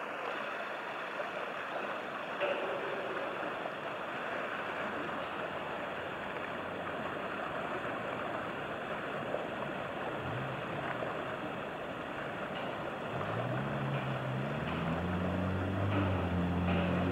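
Steady wash of river water and wind. About three-quarters of the way in, an engine drone comes in, rising in pitch and growing louder.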